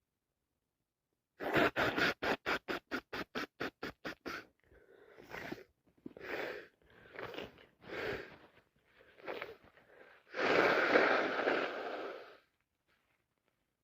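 A person with a head cold sniffling: a fast run of short sniffs, then several slower heavy breaths through the nose about a second apart, then one long nose blow lasting about two seconds, the loudest sound here.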